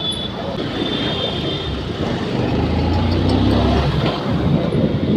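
Road traffic noise with vehicle engines running, and a low engine drone that swells in the middle.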